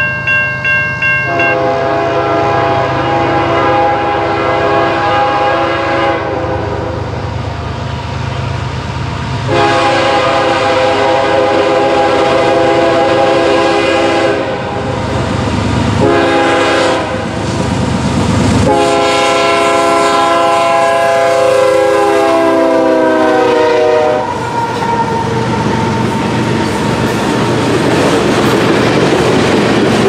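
Horn of a BNSF GE ES44AC diesel locomotive leading a freight train, sounding the grade-crossing signal as the train approaches: two long blasts, a short one and a final long blast that sags in pitch as it cuts off. After that the train passes close by, with the freight cars rumbling and clicking over the rail joints.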